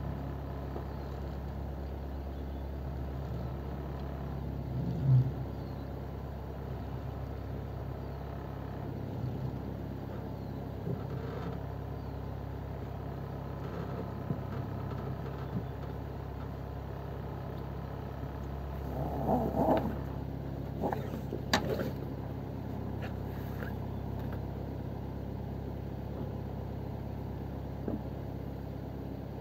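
Steel motorboat's engine idling steadily. A few short knocks and clatters on the boat, the loudest about five seconds in and a cluster around twenty seconds in.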